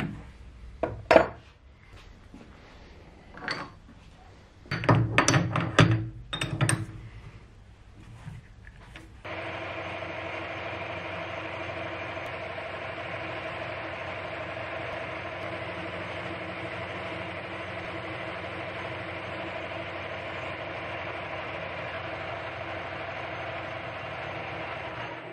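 Metal knocks and clatter as a lathe's three-jaw chuck is tightened with its key on an aluminium bar. About nine seconds in, the lathe starts running with a steady hum of motor and gears while a cutting tool faces the end of the spinning aluminium bar. The hum cuts off suddenly at the end.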